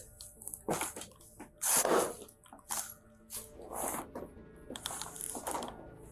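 Irregular scuffing and rustling noises, the loudest about two seconds in, over a faint steady music bed.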